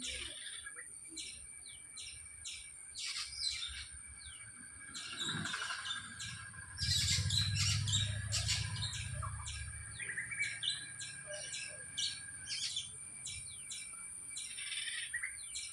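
Several birds chirping, with many short chirps in quick succession over a steady high-pitched whine. A low rumble comes in about seven seconds in and fades out by about ten seconds.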